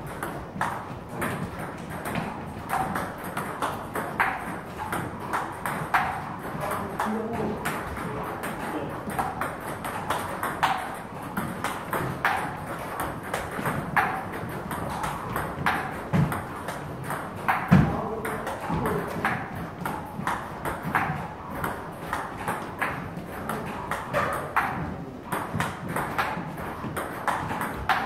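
A table tennis rally: the ball clicks off the paddles and bounces on the table in a steady back-and-forth rhythm, one hit or bounce every half second to a second. A defensive chopper plays the ball back with Butterfly Ilius S long-pimple rubber against an attacker. One louder, lower thump comes about eighteen seconds in.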